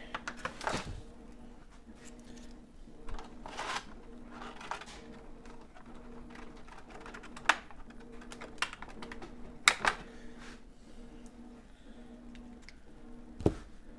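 Hands handling a quadcopter's moulded plastic packaging tray and its parts: scattered light clicks and rustles, with a few sharper clicks around the middle and a dull knock near the end, over a faint steady hum.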